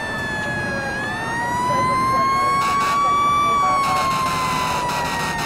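Fire truck siren sounding a slow wail: the pitch dips, climbs for about two and a half seconds, then falls again. A harsh rushing noise joins over it about four seconds in, and a second, lower siren tone slides down near the end.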